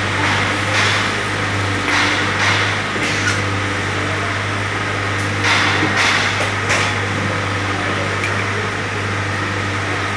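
Steady low hum of workshop machinery, with short bursts of rustling from cut fabric cuff pieces being handled and shuffled on the table, the longest a little past halfway.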